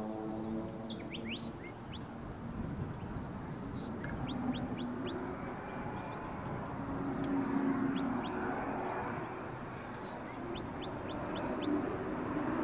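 Air Tractor AT-500 series crop-dusting plane's engine droning at a distance, growing louder again near the end as the aircraft comes back in. Birds chirp over it in quick runs of four or five short rising notes.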